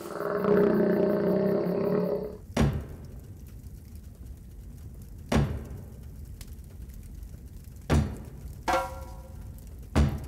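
Stage-show music: a sustained low chord for about two and a half seconds, then slow, single deep drum beats roughly every two and a half seconds, with a ringing pitched strike between the last two beats.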